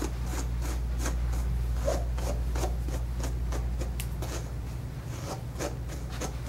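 Bristle brush stroking through a dog's long tail hair, about three quick brushing strokes a second, over a steady low hum.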